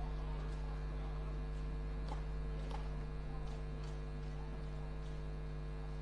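Steady electrical mains hum in the audio feed, with a few faint, scattered ticks.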